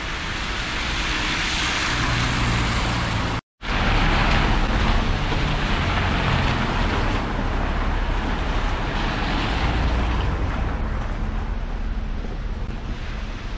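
Street traffic on a rain-soaked road: car tyres hissing on the wet surface over a low engine rumble. The sound cuts out for a moment about three and a half seconds in.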